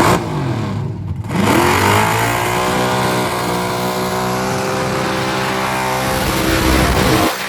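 Burnout car's engine revving hard: the revs dip briefly about a second in, climb quickly and are then held steady and high for several seconds before falling off near the end, over a constant hiss.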